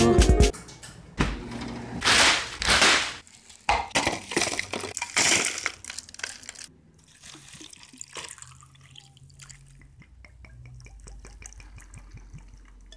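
A red drink poured over ice into a cup, in several loud splashing pours with ice clinking over the first six seconds, then a faint, quick crackling of ice settling in the liquid.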